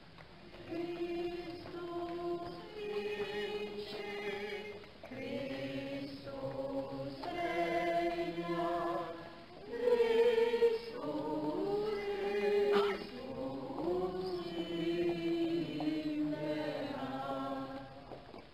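A group of voices singing a religious chant together, in long held phrases with short breaths between them.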